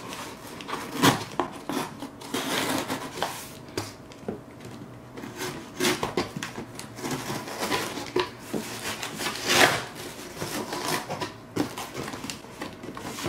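Cardboard shipping box being handled and cut open with a utility knife: irregular rustling, scraping and knocking of the flaps and the boxed unit inside.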